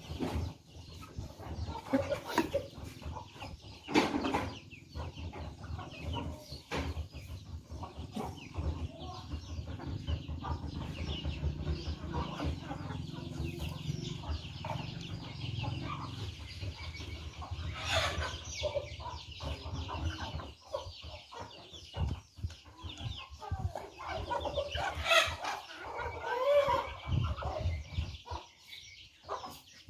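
Chickens clucking while they peck at scattered feed on bare ground, with many quick taps throughout and a few louder calls about two-thirds of the way through.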